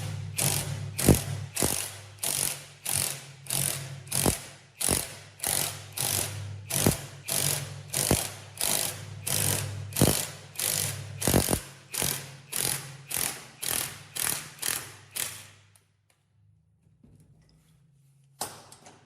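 A tool worked in a steady series of noisy, rasping strokes, nearly two a second, over a steady low hum. The strokes stop about sixteen seconds in, and a single stroke follows near the end.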